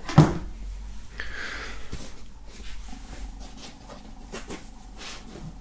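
A sharp knock just after the start, then soft rubbing and handling noise as white foam packing is moved and lifted away from beside a wooden box.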